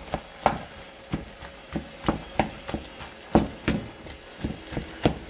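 A spatula knocking against a metal frying pan as boiled yuca is mashed, in short uneven strokes about three a second.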